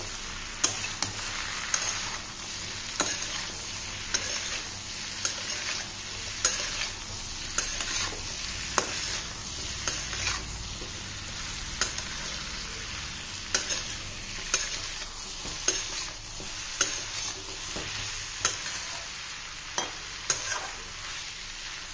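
A spatula stirring chopped vegetables and spices in a metal kadhai, knocking and scraping against the pan about once a second over a steady sizzle of the vegetables frying.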